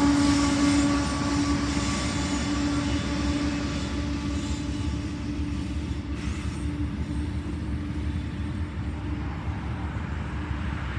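Freight train rolling away along the track, its rumble slowly fading. A steady whine fades out over the first couple of seconds and comes back faintly near the end.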